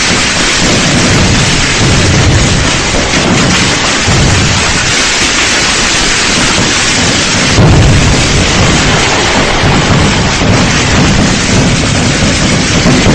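Dense fireworks barrage: many bursts and low booms blending into one continuous noise, getting louder a little past halfway.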